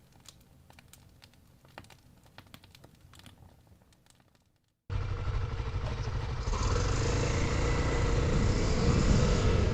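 Faint scattered clicking, then a sudden cut about five seconds in to a dual-sport dirt bike's engine running steadily with a low rumble. A steady hiss joins it about a second and a half later.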